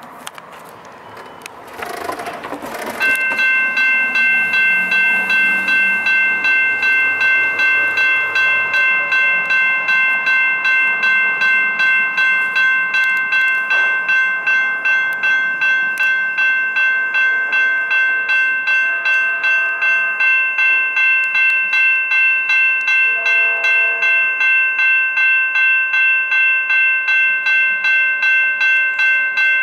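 Railroad crossing warning bell starting about three seconds in and ringing steadily at a little over two strokes a second: the crossing has activated for an approaching train and its gates are lowering.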